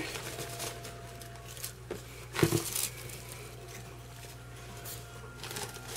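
Paper crinkle shred rustling and a small plastic wiffle ball being handled as the paper is pushed into its holes, with one brief louder knock about two and a half seconds in. Tornado sirens sound faintly underneath as thin steady tones.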